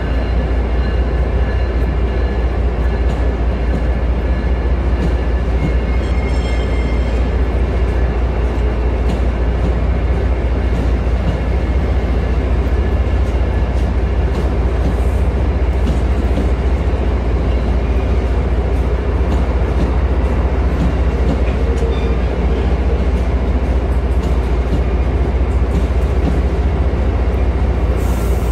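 Amtrak Amfleet passenger coaches rolling past a station platform: a loud, steady rumble of steel wheels on rail with a deep low roar underneath, unchanging as car after car goes by.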